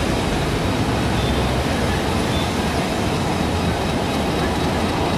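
Passenger train coaches rolling slowly over the rails, a steady low rumble of wheels on track.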